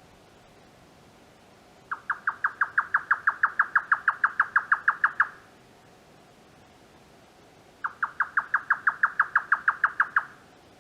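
Grey nightjar singing its typical rapid 'kyo-kyo-kyo' song, the call likened to chopping cucumbers. It gives two runs of fast, evenly repeated notes, about seven a second: the first lasts about three and a half seconds, the second starts midway and lasts about two and a half.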